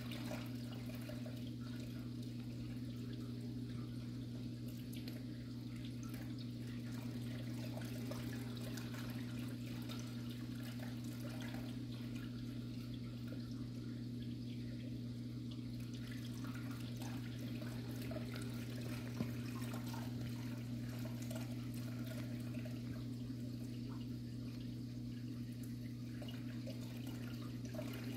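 Reef aquarium's circulation pump or filter humming steadily, with water moving and trickling in the tank and faint scattered crackles; one sharp click about nineteen seconds in.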